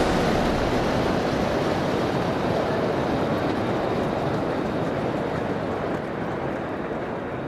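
Steady rushing rumble of a moving train, slowly fading away.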